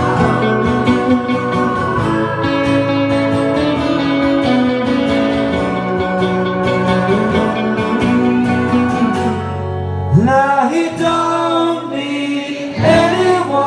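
Live guitar music: strummed guitar chords, joined about ten seconds in by a man singing.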